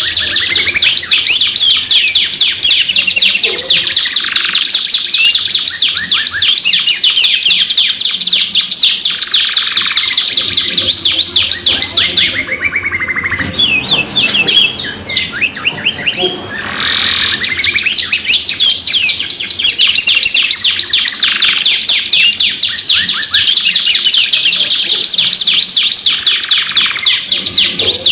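Domestic canaries singing long, loud, continuous song of fast trills and rolling chirps. The song thins out briefly about halfway through, then resumes at full density.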